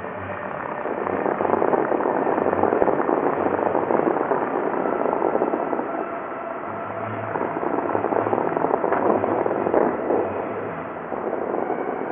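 Bellagio fountain jets spraying: a rushing hiss of water that swells about a second in, eases around six seconds, then swells again and drops back near the end.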